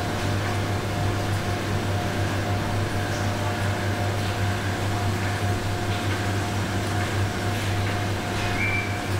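Steady hum of factory machinery, a low drone with a constant higher whine over it. A few faint metallic knocks from stainless-steel trolley racks being handled, and a short squeak near the end.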